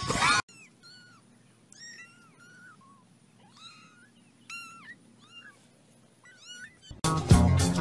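A young kitten mewing over and over: a string of short, high, arching mews, about a dozen in all. A brief loud sound at the very start ends abruptly, and upbeat music cuts in near the end.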